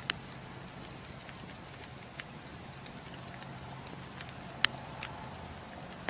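Fireplace fire burning with a steady soft hiss and a few sharp crackling pops, the loudest about two-thirds of the way through.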